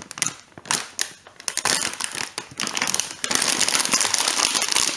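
Plastic candy bag crinkling and crackling as hands pull it and tear it open. Sparse crinkles for the first three seconds, then a denser, steadier crackle of tearing plastic.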